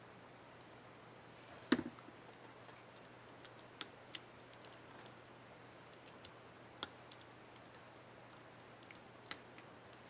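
Small plastic clicks and ticks as a laptop keycap's retainer clip is handled and pressed onto an HP Mini 5101 keyboard. The clicks are scattered, with a louder knock just under two seconds in.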